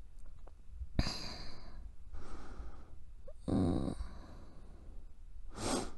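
A woman breathing softly close to the microphone: several slow breaths, a few seconds apart.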